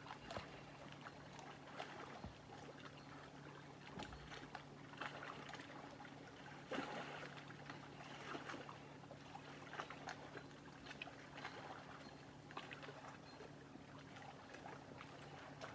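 Small lake waves lapping and splashing irregularly at the water's edge, with a steady low hum underneath.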